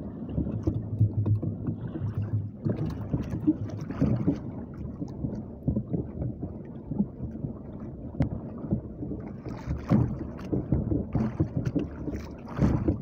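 Sea water slapping and splashing against the hull of a small outrigger fishing boat in a choppy swell, in irregular splashes and knocks, with wind buffeting the microphone.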